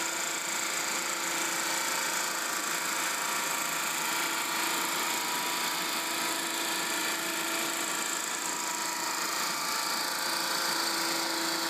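Cyclone WHE-252 10 HP waste-heat steam engine running steadily on 200 psi, 600 °F steam: an even mechanical whir with a constant hum and a hiss over it.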